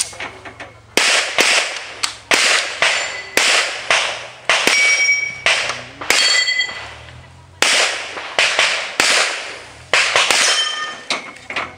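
A string of about fifteen handgun shots, a shot every half second to second, each with a short echo, with a pause of about a second and a half a little past halfway. Several shots are followed by a brief ringing tone: steel targets ringing when hit.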